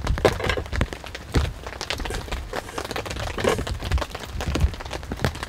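Irregular taps and knocks with a few dull thumps.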